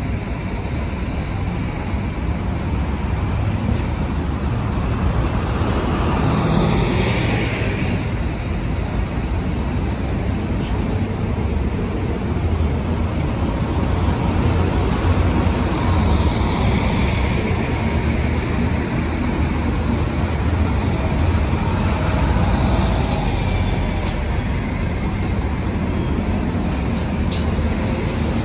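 Diesel buses, an articulated transit bus and highway coaches, driving past one after another with a steady low engine rumble and traffic noise. The sound swells as each one passes, around a quarter of the way in and again about halfway through.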